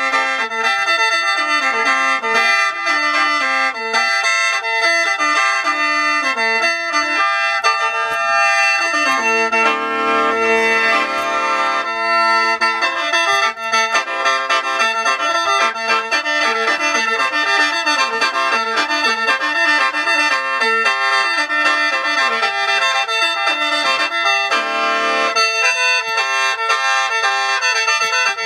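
Background instrumental music: a melody of stepping notes over steady held notes.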